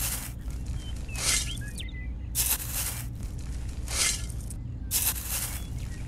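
Wheat grains scooped with a small toy shovel and tipped into a plastic toy trailer: a short dry rattling rush of grain about every second and a quarter, five times, over a steady low hum.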